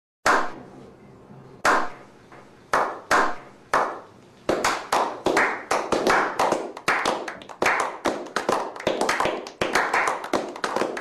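Slow clap by a small group: single hand claps about a second apart, each with a ringing tail, quickening after about four seconds into brisk, continuous applause.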